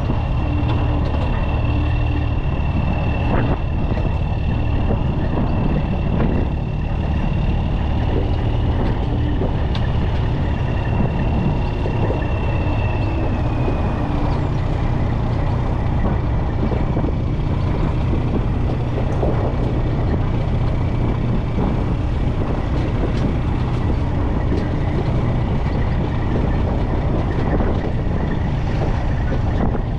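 Heavy-duty tow truck's diesel engine running steadily under load, with a thin high whine that slowly drops in pitch over the first half.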